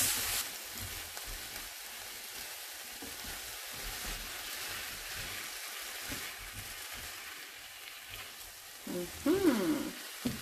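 Mixed vegetables (broccoli, cauliflower, carrots and onion) sizzling in hot oil in a non-stick pan while a silicone spatula stirs them, a steady frying hiss. A brief burst of a person's voice near the end is louder than the frying.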